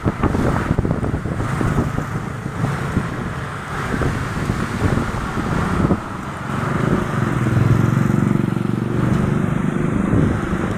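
Strong, gusty wind buffeting the microphone: a loud, low rumbling noise with irregular thumps, heaviest for a couple of seconds about seven seconds in.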